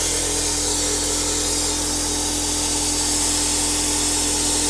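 Steady hiss of compressed air over a constant low hum, from the air supply holding the cylinder pressurized so the valve stays shut while its stem seal is changed.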